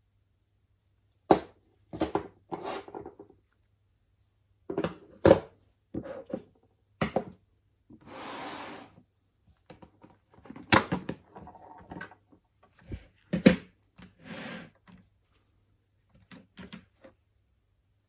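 Handling of replica Glock 17 pistols: a series of sharp clicks and knocks at irregular intervals, with a hiss lasting about a second near the middle and a shorter hiss later.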